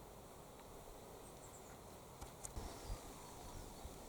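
Quiet garden ambience with a few faint, short high chirps and a handful of soft knocks and clicks a little past the middle.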